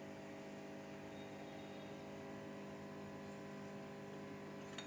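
Steady low electrical hum, like mains hum from an appliance, with a faint click near the end.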